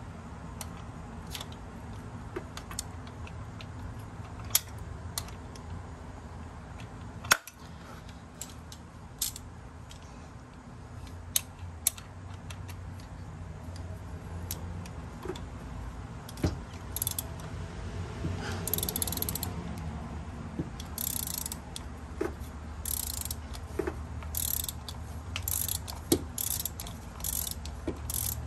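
3/8-inch socket ratchet on an extension and 5/8 spark-plug socket, loosening a spark plug. Scattered clicks at first, one sharp crack about seven seconds in, then quick runs of ratchet clicking through the second half, over a steady low hum.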